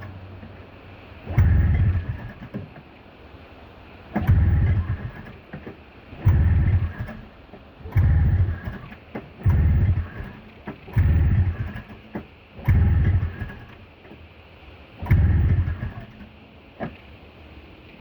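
Snowmobile engine being cranked over again and again, about eight short attempts each lasting around a second, turning over without catching: it won't start in the cold.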